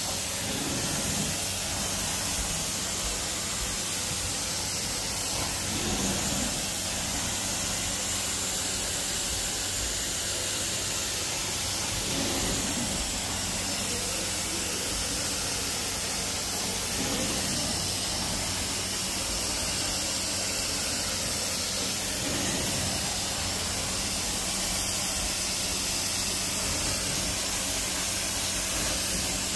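Carpet extraction wand and cleaning machine running: a steady, loud rushing hiss of suction over a low hum, swelling slightly every five seconds or so as the wand is drawn across the carpet.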